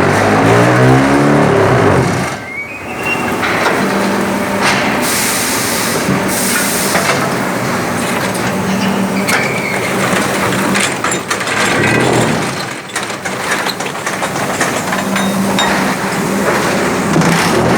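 Pumice concrete block-making machine running through its cycle: loud, continuous mechanical clatter and knocking. Its motor pitch glides near the start and again near the end, and a hiss comes about five seconds in.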